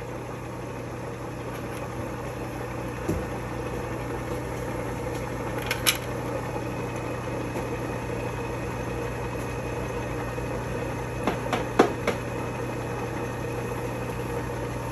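Surface grinder's motor and wheel running with a steady hum while a screwdriver tip is hand-ground, with a few brief clicks and taps from the work being handled.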